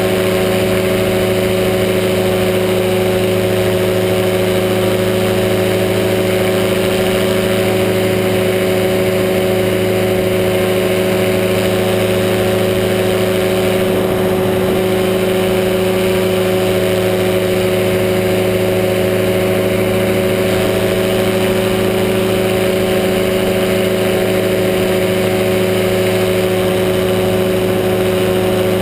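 Powered parachute's engine and propeller running steadily in flight: an even drone at one pitch, without revving up or down.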